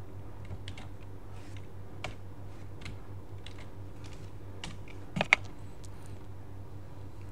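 Computer keyboard keystrokes: a few scattered key presses, with a louder pair of clicks about five seconds in, over a low steady hum.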